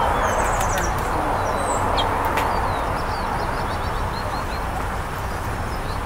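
Small songbirds chirping: a quick high trill near the start, a few single chirps, then a run of rapid short notes, over a steady rushing background noise.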